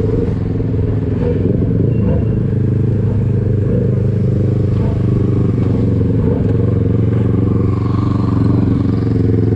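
Motorcycle engine running at a steady speed while riding, its pitch holding level throughout.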